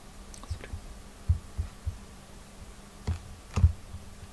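Irregular computer keyboard and mouse clicks, picked up mostly as dull low thumps, about eight of them, the last two near the end sharper and louder. A steady low electrical hum runs underneath.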